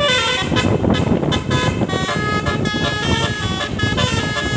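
Telolet musical air horn on a tour bus, its roof trumpets playing a melody as a quick run of short held notes that change pitch. A steady low rumble runs underneath.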